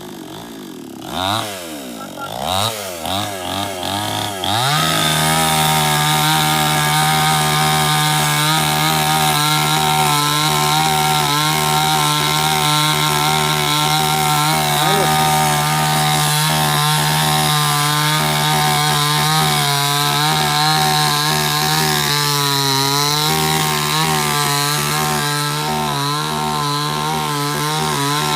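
Two-stroke chainsaw revved in a few short blips, its pitch rising and falling, then held at a steady high speed while cutting into a tree. Its pitch sags briefly under load about three quarters of the way through.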